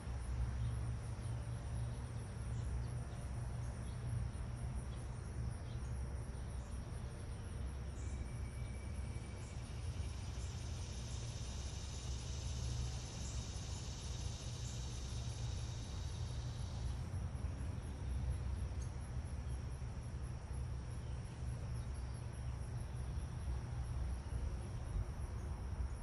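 Insects calling steadily in a high, finely pulsed trill, with a second, louder insect chorus joining about eight seconds in and cutting off abruptly around seventeen seconds. A steady low rumble runs underneath.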